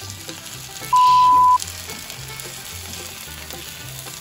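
Grated-potato pancakes sizzling in oil in a frying pan as they are turned with a spatula, over background music with a low bass line. About a second in, a single loud pure-tone beep sounds for just over half a second, the loudest sound here.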